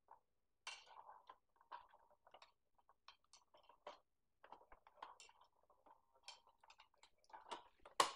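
Small plastic parts of a Miniverse miniature kitchen toy being handled and fitted together on a wooden table: faint, irregular clicks and rustles, with a sharper click near the end.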